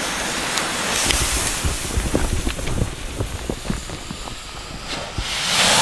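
Firework rocket's lit fuse hissing and crackling, then about five seconds in a louder, steady rushing as the rocket motor fires and the rocket lifts off.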